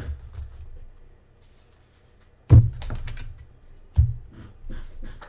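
Trading cards being handled on a table: light clicks and rustles, then two sharp knocks with a low thud, about a second and a half apart.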